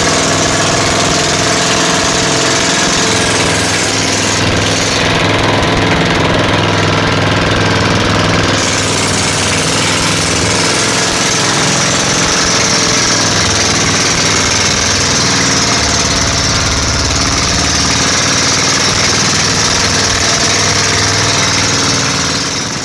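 Motorized outrigger boat's engine running steadily under load while towing another boat.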